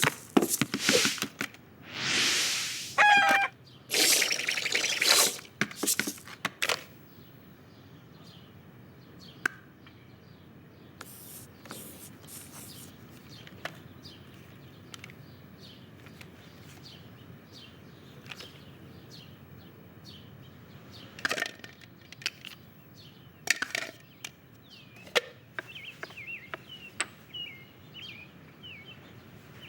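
Animated-film sound effects: several loud swishing rushes in the first few seconds, then a quiet outdoor background dotted with small taps and clicks, a few more swishes later, and brief bird chirps near the end.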